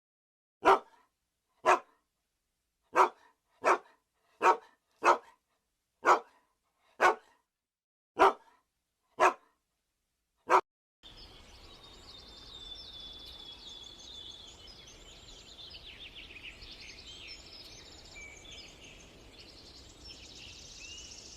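A dog barking: eleven single barks about a second apart, each cut off cleanly. From about halfway, a steady background with fast, high chirping takes over.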